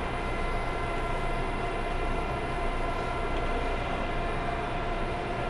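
Steady machine hum with several held tones from restaurant equipment such as refrigeration and ventilation.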